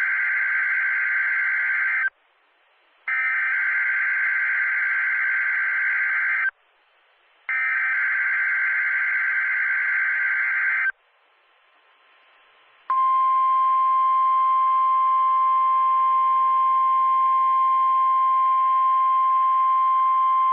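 NOAA Weather Radio Emergency Alert System test signal: three bursts of the SAME digital header, a harsh buzzing warble, each about three and a half seconds long with a second's pause between. After a short pause, the steady 1050 Hz warning alarm tone starts about two-thirds of the way through and holds, the tone that sets off alert-ready weather radios.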